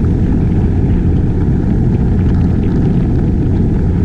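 Outboard motor of a small inflatable boat running steadily at speed as the boat planes, a loud, even rumble.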